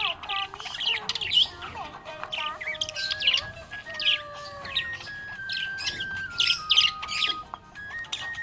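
Budgerigars chirping busily, a rapid run of short, sharp chirps and warbles with no break. A simple tune of held notes stepping up and down plays underneath.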